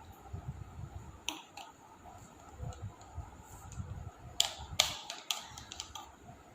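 Handling noise: sharp clicks and crackles, a couple about a second in and a louder cluster between about four and six seconds in, over a low uneven rumble.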